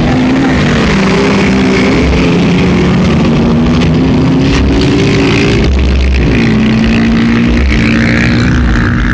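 Engines of several off-road vehicles running and revving at close range, their pitches drifting up and down, over a thick rushing noise; one engine settles to a steady note a little after six seconds in.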